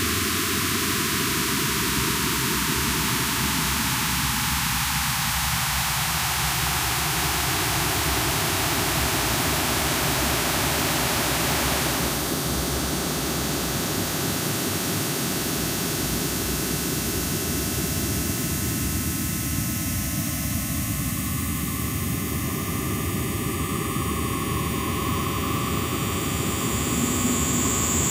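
Industrial harsh-noise music: a dense, static-like wall of hiss. A hollow in the sound slides downward in pitch over the first several seconds, the texture shifts about twelve seconds in, and a high whistling tone enters near the end as the noise grows slightly louder.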